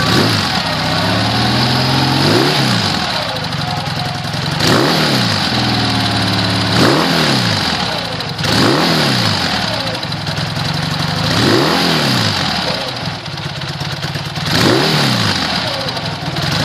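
BMW R80 GS air-cooled boxer twin idling through a Mass two-into-two stainless exhaust with its dB killers fitted. It is blipped on the throttle about seven times, every two to three seconds, each rev rising and dropping back to idle.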